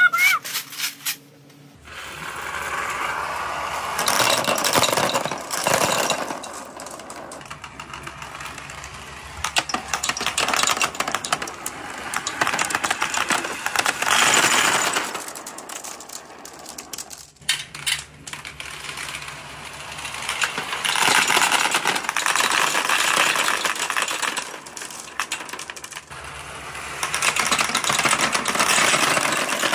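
Large batches of glass marbles and small balls rolling and clattering down a perforated-board slope, a dense rattle of clicks that comes in several waves with quieter gaps between them.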